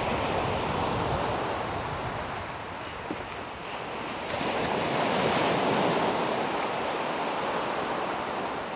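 Waves breaking and washing onto a sandy beach, swelling twice, at the start and again from about halfway, with some wind noise on the microphone.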